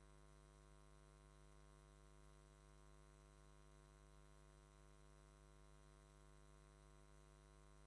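Near silence with a faint, steady electrical mains hum and light hiss on the line.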